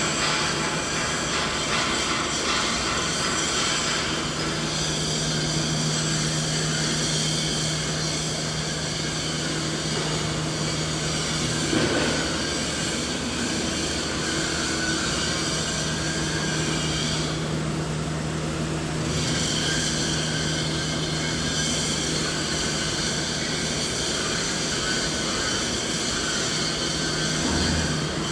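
Continuous machine noise: a steady low hum with several held tones over dense hiss, used as a tinnitus-masking sound. There is a faint knock about twelve seconds in, and the upper hiss briefly drops away about two-thirds of the way through.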